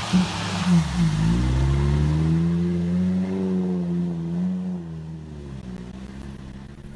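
UAZ off-road vehicle's engine revving hard as it ploughs through a muddy water hole, with water and mud splashing in the first second. The revs dip and climb again about a second in, hold high, then fade as the vehicle pulls away.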